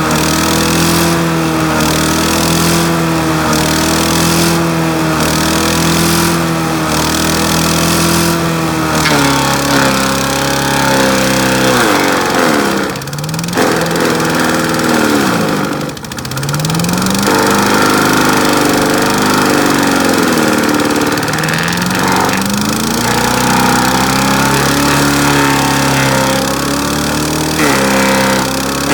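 Pull-start gasoline engine of a wood chipper running hard. Its pitch sags several times, dropping sharply twice in the middle, and climbs back each time: the engine being pulled down by branches fed into the chipper and recovering.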